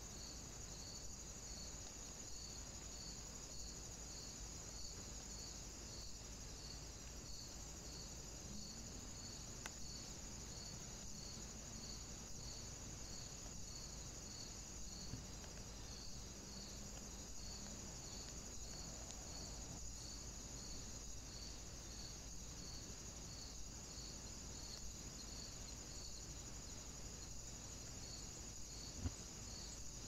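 A steady high-pitched insect chirring with an even pulse about one and a half times a second, over a faint low hum; a single sharp knock near the end.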